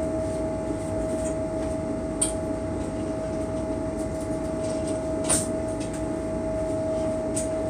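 Steady machinery drone with a constant hum aboard a towboat, and two light clicks, about two seconds in and about five seconds in.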